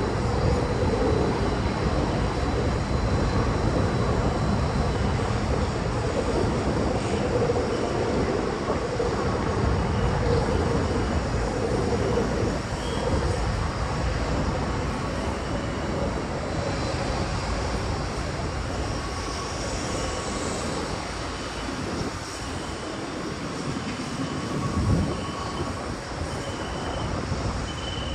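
Outdoor city ambience: a steady low rumble of urban traffic and machinery. A faint high beep repeats about once a second through the second half.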